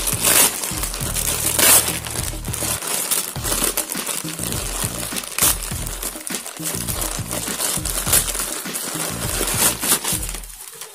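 Plastic courier mailer bag crinkling and crackling irregularly as hands pull it open, with background music underneath.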